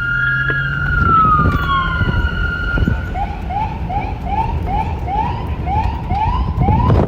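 Police car siren: a held wail tone glides down in pitch about a second in. About three seconds in it switches to a fast yelp, short rising sweeps about three a second, over a low rumble.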